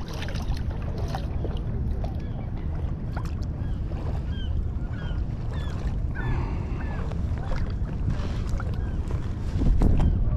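Wind buffeting the microphone over lapping water, with light splashing as a small fish is brought to hand at the surface. A few short high chirps come through in the middle.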